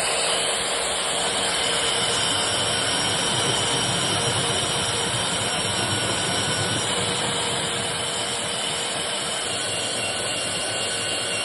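FEIN KBM 65 U magnetic core drilling machine running steadily, a continuous mechanical noise with a faint high whine, easing slightly in level about halfway through.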